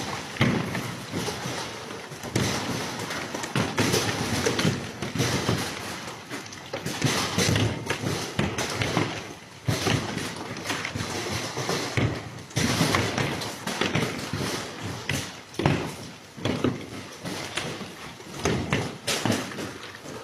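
A run of irregular thumps and knocks over a continuous hiss.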